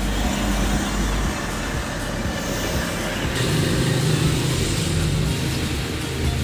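Street traffic: motor vehicles running past with road noise, a low engine hum growing stronger in the middle as one goes by.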